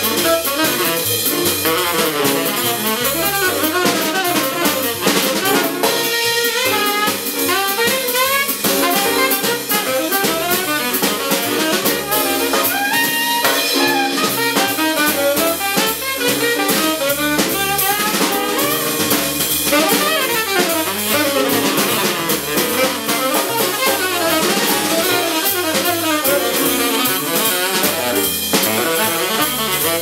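Live jazz from a quartet: tenor saxophone playing fast, moving lines over digital piano, upright double bass and drum kit, with cymbals throughout.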